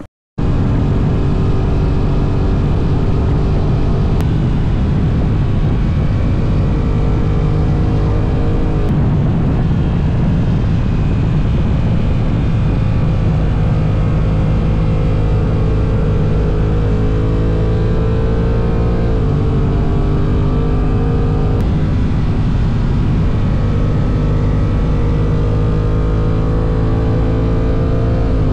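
Honda NT1100's parallel-twin engine running at highway speed, heard from on the bike over steady wind rush. Its pitch slowly climbs and then drops back a few times.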